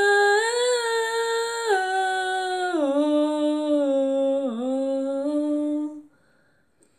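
A girl singing, drawing out the last word of a phrase on one long note, partly hummed, that steps down in pitch several times and breaks off about six seconds in.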